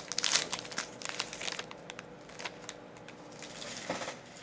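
Plastic wrapper of a pack of trading cards crinkling and tearing as it is opened, dense crackling for about the first second and a half, then a few scattered crackles and one more brief rustle near the end.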